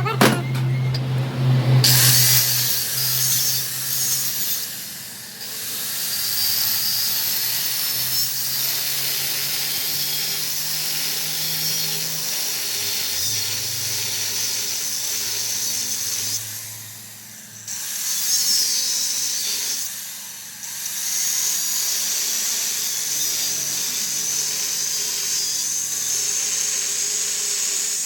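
A workshop power tool running with a strong high-pitched hiss, starting about two seconds in and easing off briefly three times.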